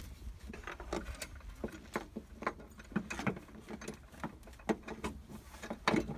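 Irregular clicks and knocks from a hand tool and hands working the metal mounting bracket and plastic grille insert of a truck's front grille, with the loudest knocks near the end, over a steady low rumble.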